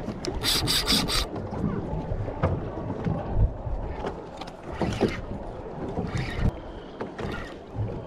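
Knocks and rubbing of gear against a fishing boat, with a short burst of rapid high-pitched clicking about half a second in.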